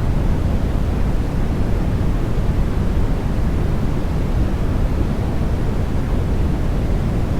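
Continuous sleep noise, steady and unchanging, with most of its energy in the deep low end and much less hiss in the highs.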